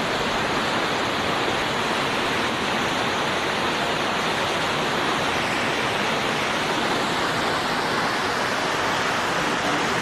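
Steady rush and splash of a rocky waterfall cascading down stepped stone ledges at its low winter flow.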